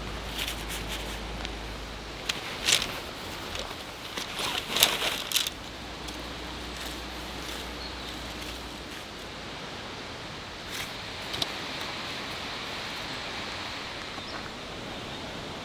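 Dome tent being pitched: rustling of tent fabric and a cluster of sharp clicks between about 2 and 5.5 seconds in, with a couple more clicks near 11 seconds, over a steady rushing background.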